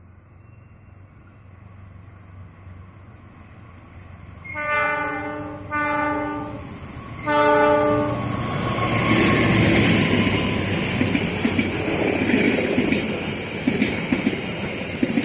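A diesel locomotive hauling a passenger train approaches with a growing rumble and sounds its multi-tone horn three times in quick succession, the last blast the loudest. It then passes close by, engine running and steel wheels clattering over rail joints near the end.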